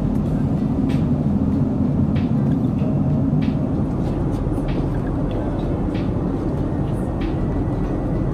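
Steady low roar inside a Boeing 747-8's cabin in flight, from the jet engines and the airflow, with a few faint clicks now and then.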